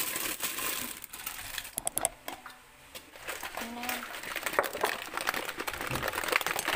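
Thin plastic carry bag crinkling and rustling as plastic milk tea cups are handled, with irregular clicks and taps of the cups knocking together and being set down on tile.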